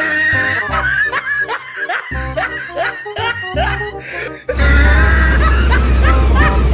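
Snickering laughter over music with a pulsing bass beat. About four and a half seconds in it cuts abruptly to the loud, low, steady rumble of a large vehicle's engine.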